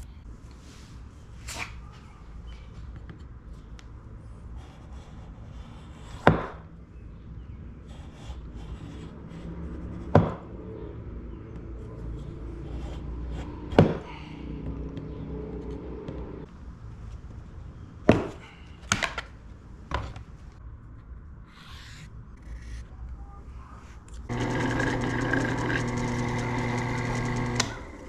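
Workshop handling noises: several sharp knocks and clicks of tools and wood being set down or handled. Near the end a power tool starts and runs steadily for about four seconds, then stops.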